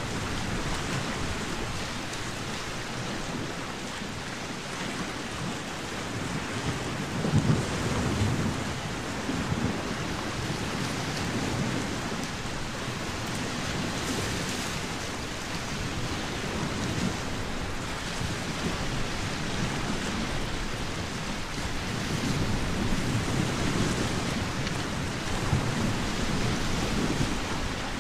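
Steady rushing water ambience, like rain or surf, with deeper rumbling swells about seven seconds in and again through the last third.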